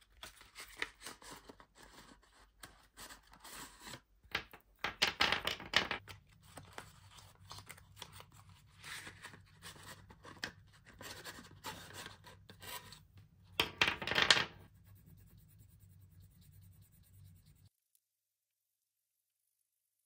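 Hands handling and opening toy packaging: irregular scraping, rubbing and tearing of cardboard and plastic, with two louder bursts about five and fourteen seconds in. The sound stops abruptly near the end.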